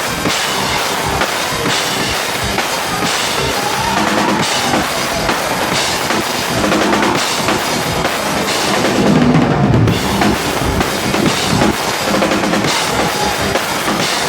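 Rock band playing live at full volume, with the drum kit's bass drum and snare driving a steady beat.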